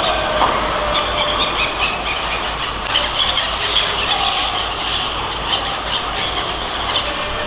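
Busy fish-market din during unloading work: a steady mechanical clatter with frequent short, high squeals throughout.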